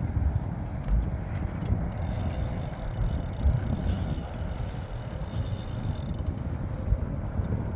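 Wind rumbling on the microphone over open water, with a few faint mechanical clicks from the spinning reel while the bent rod holds a hooked catfish.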